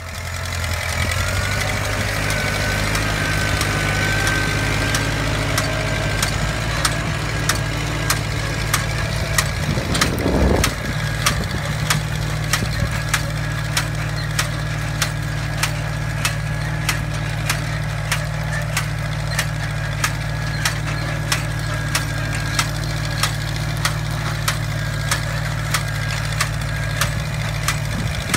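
Case tractor engine running steadily under a John Deere hill drop planter, with a sharp regular clack a little under two times a second from the planter's hill-drop seed mechanism as it sets the hills. A brief rougher rattle comes about ten seconds in.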